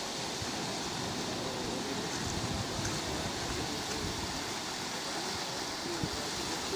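Sea surf washing steadily along the shore, with wind on the microphone.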